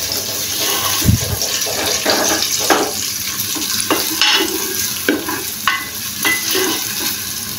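Sliced onions frying and sizzling in an aluminium pressure cooker as they are browned golden, stirred with a wooden spoon that scrapes and knocks against the pot one or two times a second.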